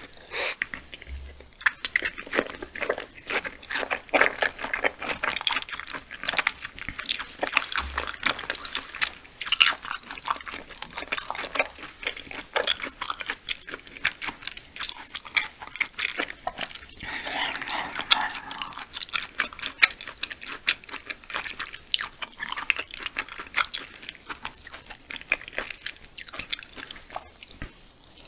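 Close-miked chewing of raw yellowtail sashimi: a steady run of many small, irregular mouth clicks as the slices are bitten and chewed.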